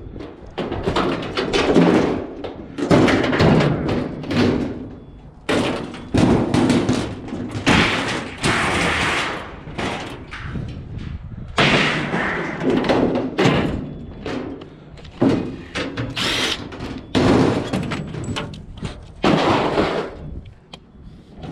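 Repeated thuds, bangs and scraping of junk and scrap being handled and thrown into a truck, one knock after another with short gaps.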